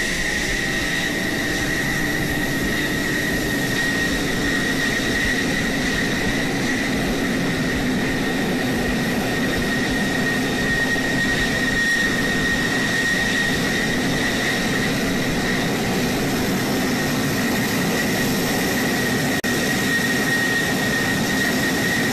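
F-16 fighter jet engines running at taxi power: a steady high whine over a broad rushing noise.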